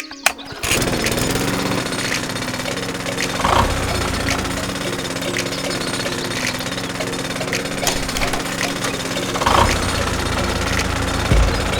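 A small motor-driven machine chattering rapidly and steadily like a miniature jackhammer, starting about a second in, with a couple of louder knocks along the way.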